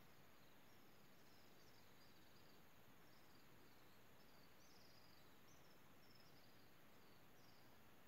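Near silence: a faint, even outdoor hiss with faint, high, falling chirps repeating about twice a second.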